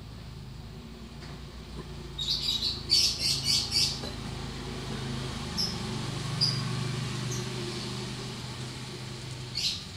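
Small birds chirping: a quick run of sharp, high chirps about two to four seconds in, then single chirps now and then. Under them a steady low hum swells and fades through the middle.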